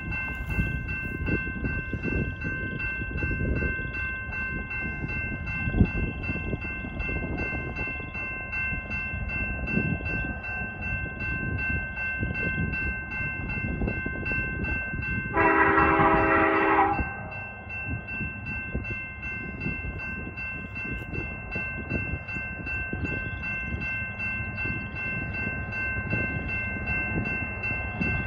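CN freight train passing a road crossing: steady rumble and clatter of wheels on the rails under the crossing bell's steady ringing. A locomotive horn sounds one blast of about a second and a half a little past halfway through.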